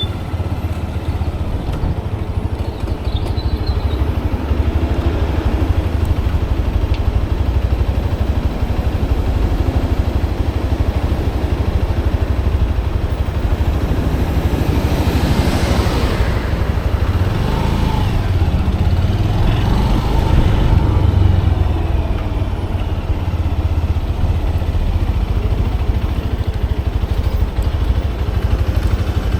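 Motorcycle engine running steadily under wind noise while riding, with a swelling rush of noise about halfway through and some changes in engine pitch shortly after.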